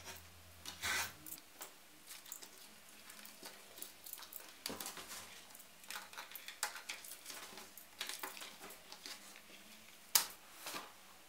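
Paper pattern and masking tape being peeled off a leather piece: scattered crinkles, rustles and small clicks. There is a short scrape about a second in and a sharp click near the end.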